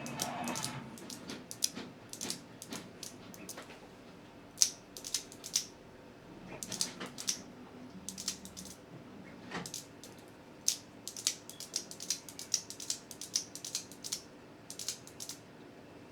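Fidget slider being slid and flicked by hand: quick irregular clicks and clacks, coming in clusters and busier in the second half.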